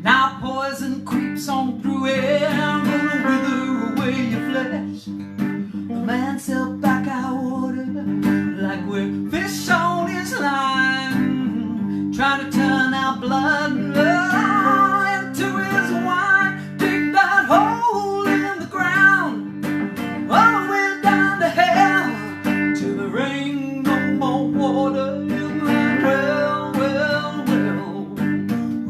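Acoustic guitar strummed and picked, with a solo singing voice over it at times.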